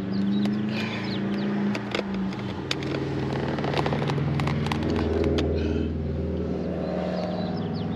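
A motor vehicle engine running, its hum dropping in pitch about two seconds in and climbing slowly later, with scattered sharp clicks and knocks throughout.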